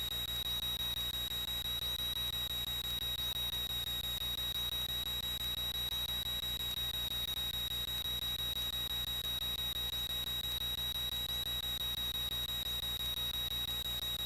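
A steady high-pitched electrical tone in the aircraft's intercom audio, holding one pitch without a break, over a faint low drone from the Cessna 182Q's engine in flight.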